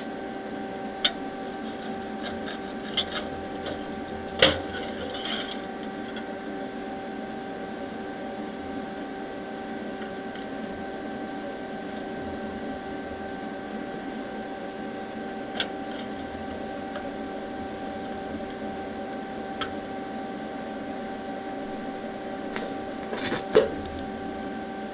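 Steady machine hum with a few sharp clicks and light metal knocks as thin 18-gauge steel sheet pieces are handled and positioned for a tack weld. The loudest knock comes about four seconds in, and a short cluster comes near the end.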